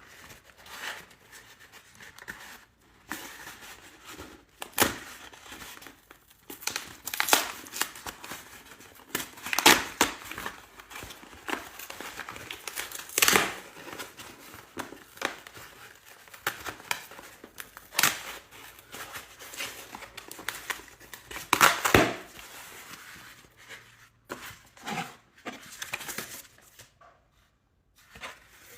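A parcel being torn open by hand: irregular tearing and crinkling of its packaging, in bursts of rustling that come and go, loudest around the middle.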